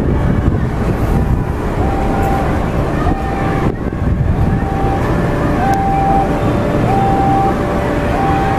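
Railway level-crossing warning alarm sounding a steady two-tone alternation, high then low, each tone held about half a second, starting about two seconds in. It rings over loud wind and street noise while the crossing is closed for an approaching train.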